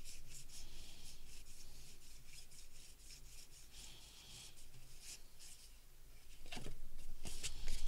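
Baseball cards sliding and scraping against one another as a stack is thumbed through card by card: a string of soft, short rasping flicks that get busier and louder near the end.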